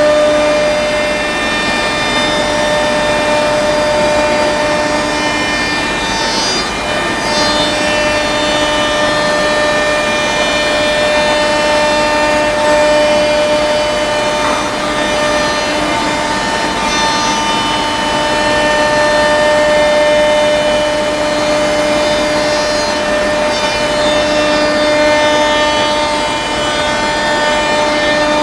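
CNC wood machining centre routing a wooden panel: the router spindle gives a steady multi-toned whine over a dense rush of cutting and dust extraction as the head travels along the board.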